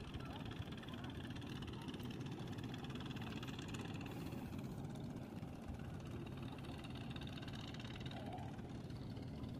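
A steady low engine drone that does not change.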